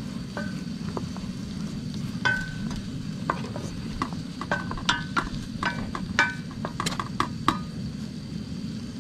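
Wooden spoon stirring diced potatoes frying in a stainless steel skillet, over steady sizzling. The spoon knocks sharply against the pan many times, mostly in the middle, and each knock rings briefly.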